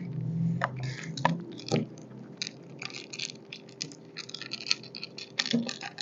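A cat chewing cat food: quick, irregular crunching clicks.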